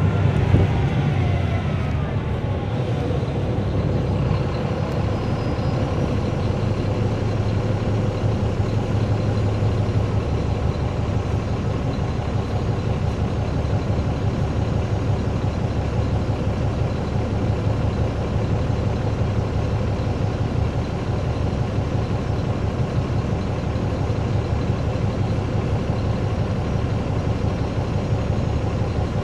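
A 2009 NABI 416.15 transit bus with a Caterpillar C13 ACERT diesel, heard from inside the bus. A whine falls in pitch over the first couple of seconds, then the diesel runs on steadily with a low drone.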